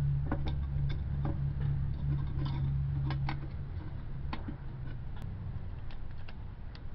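Irregular light metallic clicks and taps as a bent-wire crankshaft is handled and fitted into metal brackets on a can, over a steady low hum that fades out a little past halfway.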